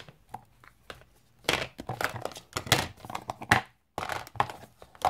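Clear acrylic stamp blocks and ink pads being handled and set down: an irregular run of short clacks and rustles, busiest in the second half.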